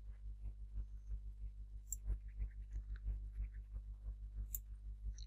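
Computer mouse clicking: two sharp clicks about two and a half seconds apart, over a steady low hum.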